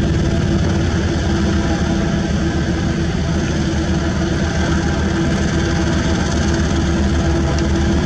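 Diesel engine of a HAMM single-drum road roller running steadily at an even speed as the roller drives forward, with a deep rumble.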